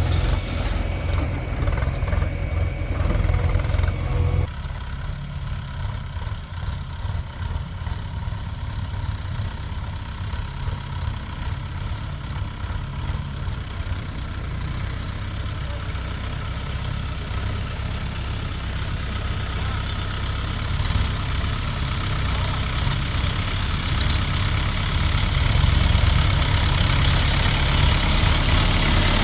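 Heavy diesel engine running steadily with a low rumble. It drops in level about four seconds in and grows louder again near the end.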